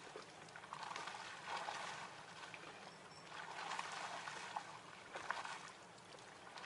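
River water sloshing and lapping at the edge of a stone embankment, swelling twice for a couple of seconds each, with a few light knocks and one sharper tap late on.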